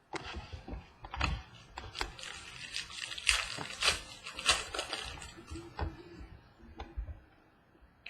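Trading cards and their packaging being handled close to the microphone: a run of rustling and crinkling with many sharp clicks and taps, dying away about seven seconds in.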